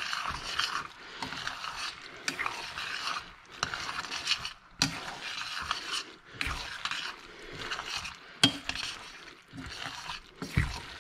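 Macaroni, vegetables and shredded cheddar being stirred in a stainless steel saucepan: irregular scraping and clicking against the metal pot throughout.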